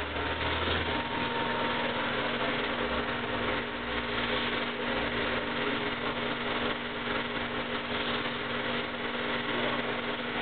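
1959 Eumig 8 mm film projector running, its motor and film mechanism giving a steady whir with a low hum underneath.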